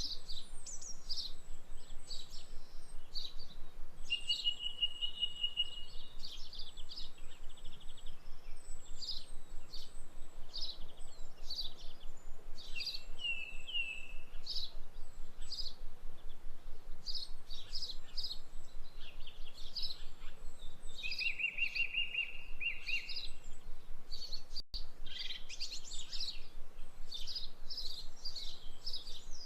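Several songbirds chirping and singing at once: quick, repeated high chirps, thin high whistles, and a few short trills, about a second in, around five seconds in and near twenty-two seconds.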